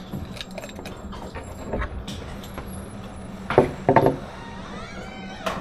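Metallic clicks and rattles of a pistol being handled, with two louder knocks about three and a half and four seconds in.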